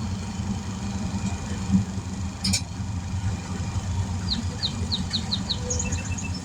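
A truck-mounted air compressor, about 15 years old, running with a low, uneven drone that doesn't sound good; the owner puts it down to worn-out bearings. A sharp click comes about two and a half seconds in, and a bird chirps six quick times a little after four seconds in.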